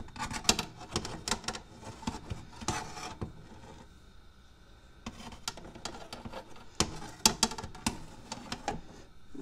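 Metal wire cooking rack clattering and scraping as it is handled and slid into the rack slots of an air fryer oven, in two bouts of quick clicks and scrapes with a quieter pause between.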